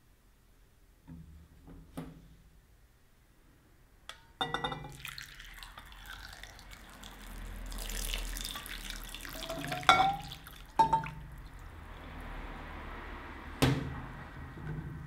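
Water poured from a metal saucepan over chestnuts in a glass bowl, splashing as the bowl fills, with clinks and knocks of the pan and glass. A sharp knock near the end as the metal pan is set down on the stainless steel counter.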